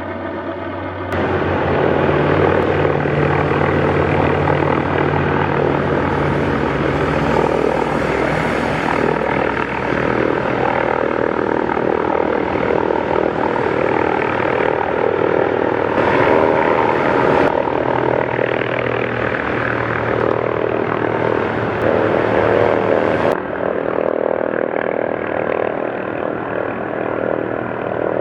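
An MD 530F helicopter's turboshaft engine and rotors running steadily. The sound changes abruptly about a second in and again at about 16 and 23 seconds.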